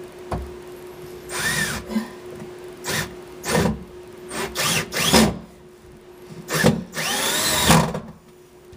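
Power drill driving SPAX wood screws to mount a subwoofer in its enclosure, in several short bursts whose pitch rises and falls as the trigger is squeezed and let go, over a steady low hum.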